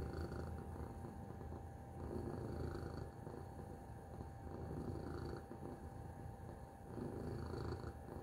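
Tabby cat purring, a low steady rumble that swells and eases with its breathing about every two and a half seconds.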